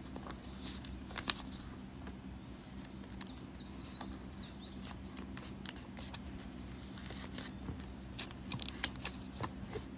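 Sheets of drawing paper and a plastic album sleeve being handled: scattered light clicks and rustles, more of them near the end, over a steady low hum.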